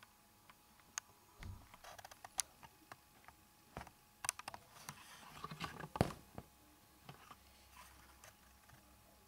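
Scattered light clicks and taps of small hard objects being handled, irregular, with a louder knock about six seconds in.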